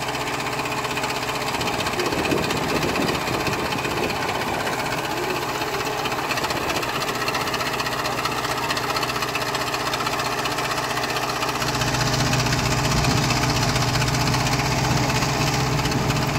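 JCB backhoe loader's diesel engine running steadily while the backhoe works. About two-thirds of the way through, the engine grows louder and heavier as the loaded bucket is lifted and swung up toward the trailer.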